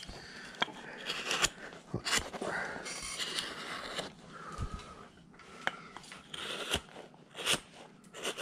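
A number 11 carving gouge worked by hand into a wood block, making a series of short scraping cuts with a few sharp clicks as the edge bites and chips of wood come free.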